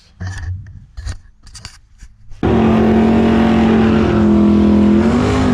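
A few faint knocks, then abruptly a loud V8 drag-car engine held at high, steady revs, its pitch wavering and lifting near the end: the 1968 Plymouth Barracuda's 406 low-deck big-block Mopar.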